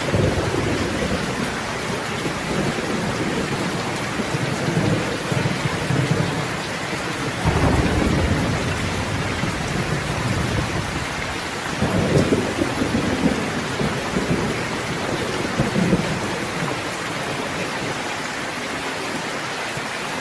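Steady rain falling, with low rolls of thunder swelling up a few times, near the middle and again later on.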